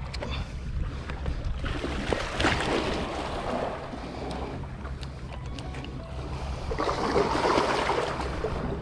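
Steady wind rumble on the microphone, with two louder spells of rushing, splashing water, about two seconds in and again near the end.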